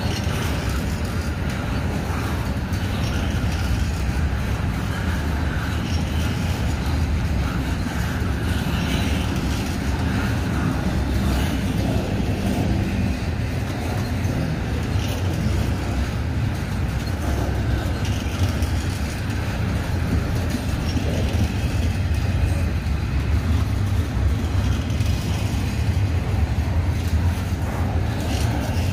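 Union Pacific intermodal freight train's container flatcars and double-stack well cars rolling past: a steady low rumble of steel wheels on rail.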